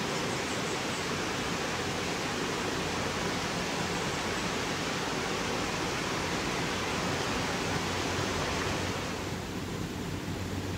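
Steady rush of a small creek's running water over little waterfalls. About nine seconds in the rush drops quieter and a low hum comes up beneath it.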